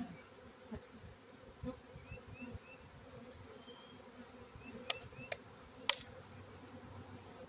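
Swarm of feral honeybees buzzing steadily around a bee-covered log, with three sharp clicks about five to six seconds in.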